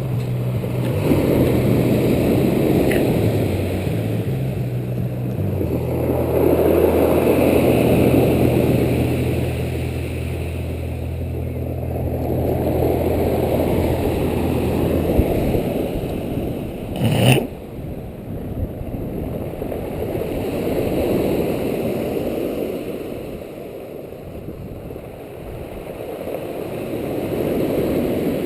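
Sea waves washing ashore, the rush swelling and fading about every five or six seconds. A low, steady motor hum runs underneath and stops about halfway through, and a single sharp knock follows soon after.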